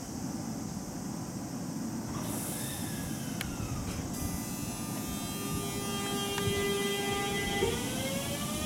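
JR Shikoku 7000 series electric train starting off. A burst of air hiss about two seconds in as the brakes release. Then, about four seconds in, the traction inverter's whine sets in as a set of steady tones that jump up in pitch near the end and begin to rise as the train gathers speed.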